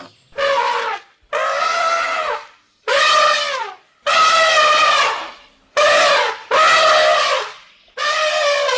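An elephant trumpeting in a quick series of about seven brassy calls, each lasting up to about a second, several dropping in pitch as they end, with short gaps between them.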